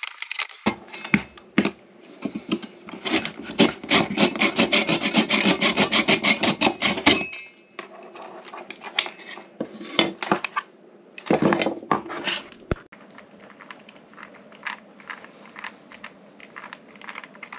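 Rapid rubbing or scraping strokes by hand, several a second, densest from about two to seven seconds in, then sparser scrapes with a few sharp knocks.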